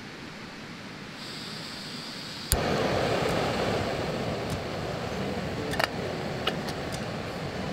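Small canister gas stove being lit: gas hisses as the valve opens, a sharp click comes about two and a half seconds in as the burner lights, and then the burner's flame runs with a steady noise. A couple of light metal clinks come near the end as the kettle handle is handled.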